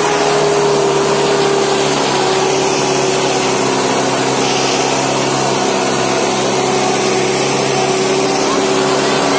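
Preet 6049 tractor's diesel engine running hard at a steady, high pitch under the load of a harrow; the note drops slightly about two seconds in and then holds.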